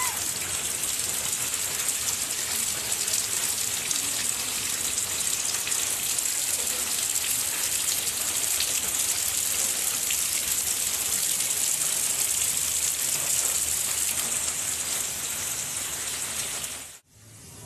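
Rain falling steadily, a constant dense hiss that cuts off suddenly near the end.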